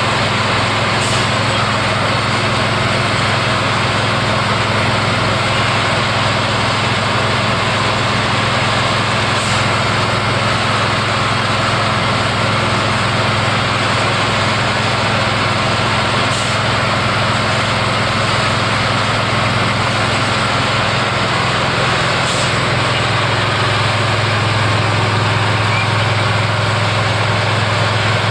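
Engine of track construction machinery running steadily at idle, a low hum that grows a little louder about three-quarters of the way through.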